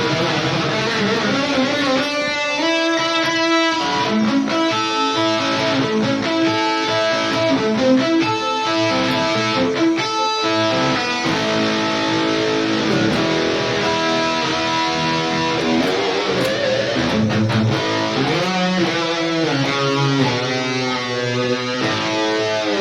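Distorted electric guitar played through a digital amp modeler: riffs mixed with sustained chords and single notes.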